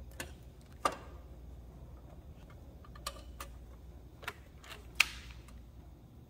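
Scattered light clicks and taps of a sheet-metal panel being handled and pressed into place against a metal housing, the sharpest about five seconds in, over a faint low hum.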